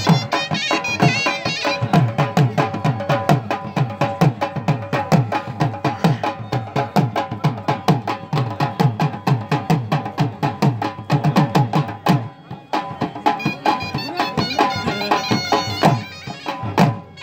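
Dhol drums beaten with sticks in a fast, driving attan rhythm, about three to four low strokes a second, with a steady melody line held above them. The low drum strokes pause briefly about twelve seconds in, then pick up again.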